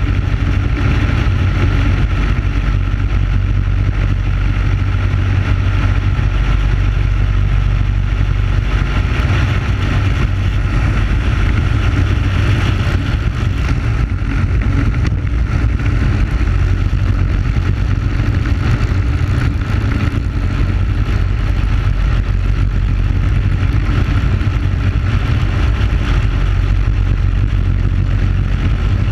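Onboard sound of a Briggs & Stratton Animal single-cylinder four-stroke kart engine running steadily at high revs, with heavy wind rumble on the microphone.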